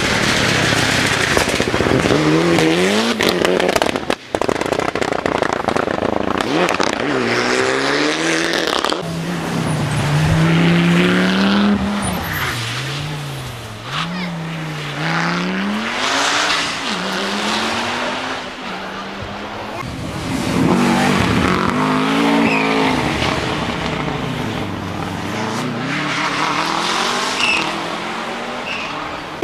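Rally car engines revving hard as the cars pass, the pitch climbing and falling sharply again and again with gear changes and lifts off the throttle, across several short clips with abrupt cuts about four and nine seconds in.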